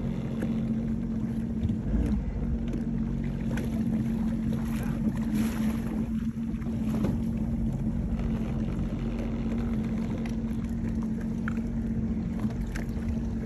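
Jet ski engine idling with a steady low hum.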